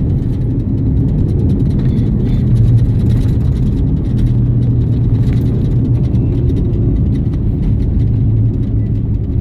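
Car driving on a rough, slow country road, heard from inside the cabin: a steady low rumble of engine and tyres with faint scattered ticks and rattles.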